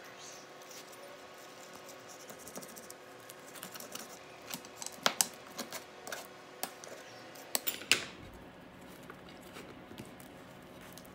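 Pizza cutter wheel rolling through a baked pizza crust and scraping over a perforated metal pizza pan, with several sharp clicks between about four and eight seconds in.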